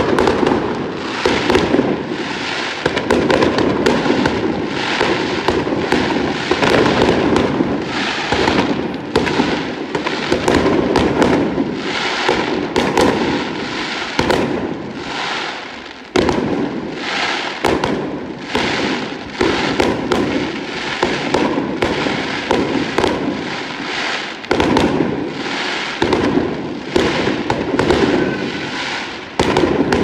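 Aerial firework shells bursting in a rapid, unbroken barrage: sharp bangs, several a second, one after another throughout.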